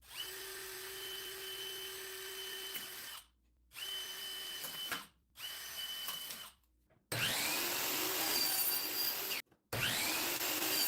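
Electric power tool running in five short bursts, each cut off abruptly. Each burst starts with a quick rising whine as the motor spins up. The last two bursts are louder and harsher than the first three.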